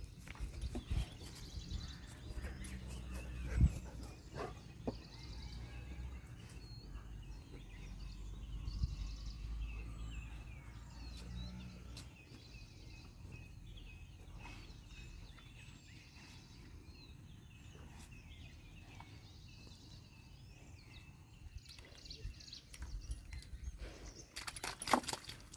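Small birds chirping here and there over a low rumble of wind on the microphone, with one knock a few seconds in.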